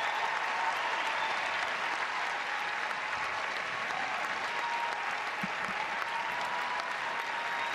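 Large crowd applauding steadily.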